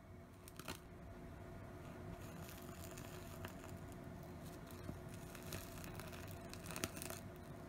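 Faint steady hiss of a long-nozzle butane torch lighter flame searing dried shredded squid, with light crackling and a few small clicks.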